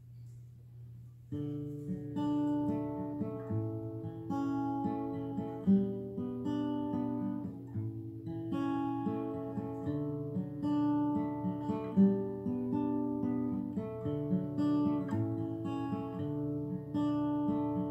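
Acoustic guitar playing an instrumental introduction to a song, plucked and strummed notes starting about a second in.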